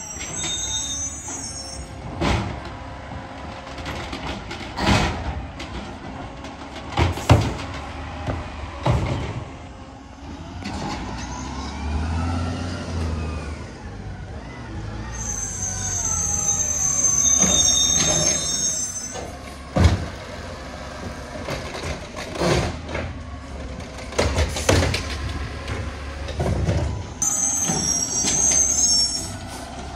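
Automated side-loader garbage truck collecting curbside bins: its diesel engine revs up and falls back as the hydraulic arm cycles, with repeated sharp knocks and bangs from the bins. High-pitched squeals come from the truck three times: at the start, about halfway through, and near the end.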